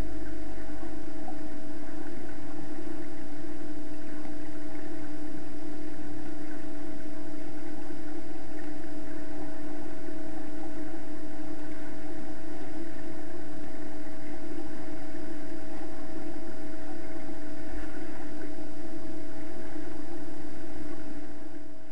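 Steady underwater hum and hiss of a swimming pool, heard through an action camera's waterproof case, with a constant low tone running throughout. It fades out near the end.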